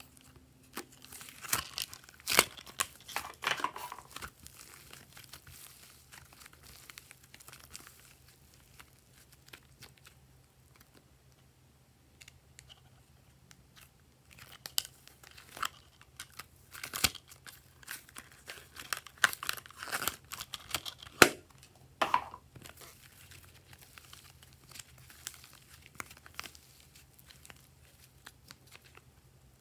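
Plastic toy compact clicking as it is handled and opened, and soft modelling clay being pulled and scraped out of its plastic trays: crackly, tearing handling noise in two bursts, with a few sharp clicks.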